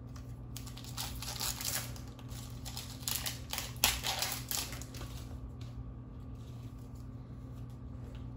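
Foil booster-pack wrapper crinkling and tearing open in the hands, in a series of crackles with the sharpest about four seconds in, then quieter handling of the cards. A low steady hum runs underneath.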